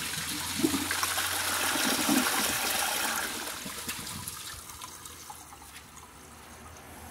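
2009 Pegasus toilet flushing: water rushes and swirls down the bowl and the repaired, taped-up trapway siphons. The rush is loudest about two seconds in and dies away over the next few seconds.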